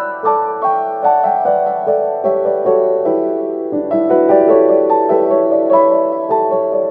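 Background music: a gentle piano melody with notes struck in a steady flowing pattern.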